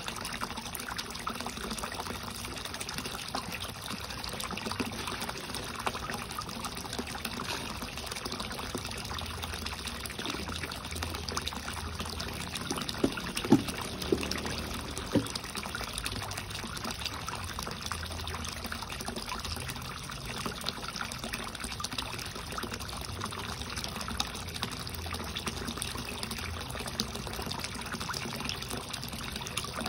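A stream of water pouring and splashing steadily into a concrete koi pond, with a few short sharp clicks near the middle.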